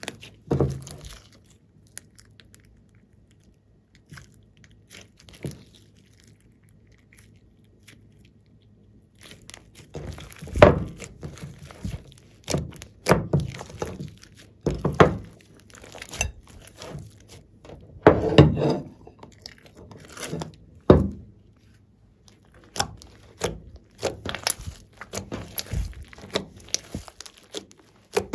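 Glossy slime mixed with clay and glitter being squeezed and kneaded by hand, giving wet squelches at irregular intervals. It is fairly quiet for the first several seconds, then the squelches come thick and fast.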